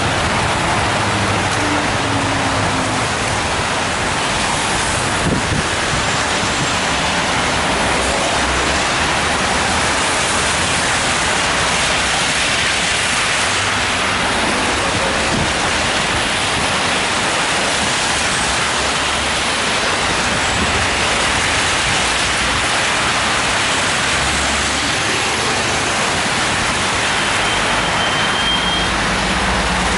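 Steady hiss and rumble of heavy traffic on a rain-soaked avenue, tyres swishing on wet asphalt, mixed with falling rain.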